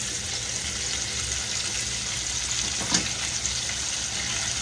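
Catfish fillets frying in hot grease: a steady sizzle, with one light knock about three seconds in.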